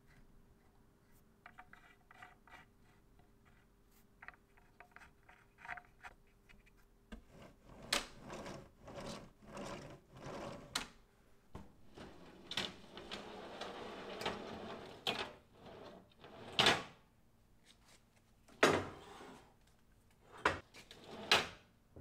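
A thin sheet being handled and slid through a laser cutter's pass-through slot and over a roller support stand. Faint light ticks give way to a run of knocks and clatters, a sliding scrape about halfway through, and several sharp knocks near the end.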